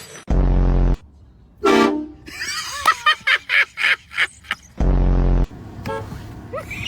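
Two short, loud air horn blasts, each about two-thirds of a second long: one just after the start and one about five seconds in. Between them a person's voice cries out.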